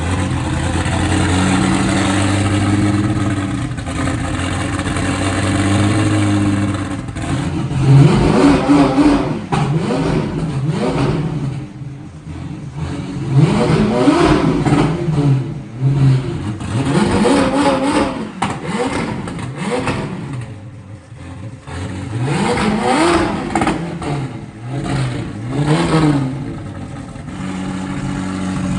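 McLaren 720S twin-turbo V8 running. It idles steadily at first, then from about seven seconds in it is revved in a string of quick throttle blips that rise and fall, before settling back to idle near the end. This is a first start after the rebuild.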